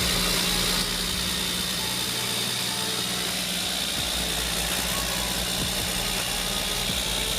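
Remote-control toy excavator running with a steady, even engine-like hum and a thin high whine on top.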